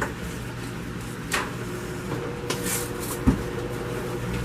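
Cardboard box being handled and pried open: a short scrape, a rustle of cardboard and a low thump about three seconds in, over a steady low room hum.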